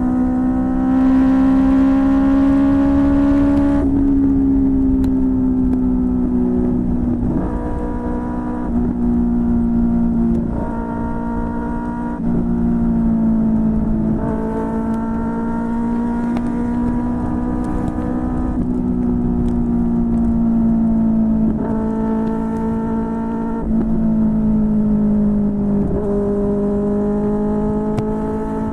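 QJMotor SRK600 inline-four motorcycle engine running through a Yoshimura R11 aftermarket exhaust while riding. Its note keeps stepping and gliding in pitch about every two to four seconds with gear changes and throttle, with a rush of wind noise in the first few seconds.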